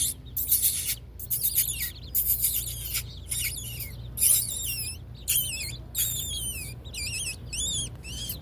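A flock of mini chickens giving many quick, high, wavering peeps and chirps as they hurry in, with scattered rustling of feet underneath.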